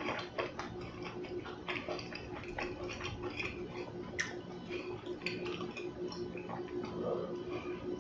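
Close-miked eating sounds: irregular sharp clicks and taps, several a second, over a steady low electrical hum.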